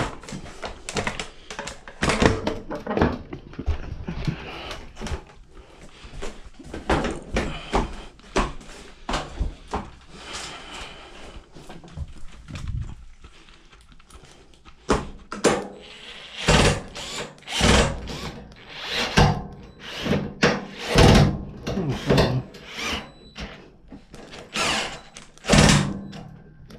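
Irregular knocks, clunks and clanks of a Samsung front-load washer's parts and panels being handled and fitted back together by hand, busier and louder in the second half.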